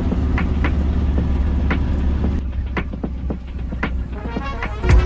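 Low, steady rumble of a road vehicle, with scattered clicks and rattles and a louder thump near the end.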